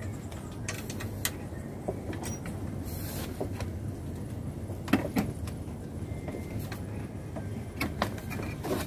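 Steady low rumble with a few short, light clicks and knocks scattered through it, about a second and a half, five and eight seconds in, as the stand's pipes and grow bag are handled.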